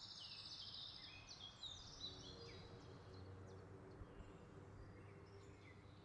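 Near silence: faint room tone with a few faint high bird chirps in the first couple of seconds.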